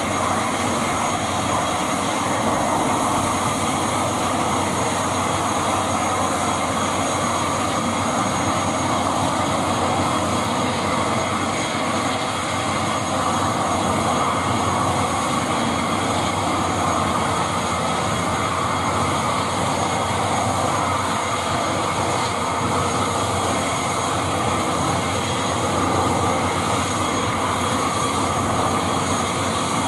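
Steady hiss and whine of an ATR 72-600 turboprop engine idling on the ground, even in level throughout.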